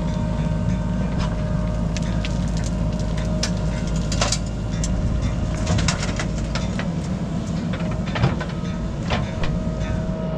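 Diesel engines of a JCB 3DX backhoe loader and a tractor running steadily, with a steady whine over the engine hum. Soil and stones clatter into the tractor's steel trolley as the backhoe bucket dumps its load, several sharp clatters between about four and nine seconds in.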